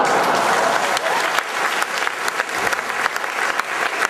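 Theatre audience applauding steadily: dense clapping from many hands.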